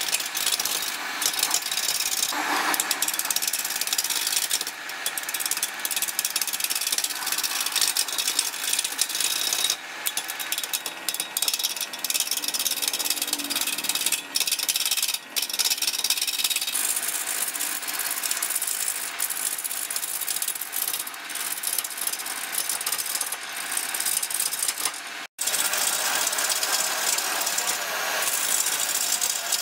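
Woodturning gouge cutting into a large wooden blank spinning on a lathe: a continuous rough scraping noise of steel tearing shavings off the wood. It breaks off for an instant once, late on.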